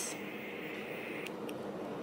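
Disposable butane lighter held lit over a candle wick: a soft steady hiss of escaping gas that cuts off a little past a second in when the lighter is let go, followed by one small click.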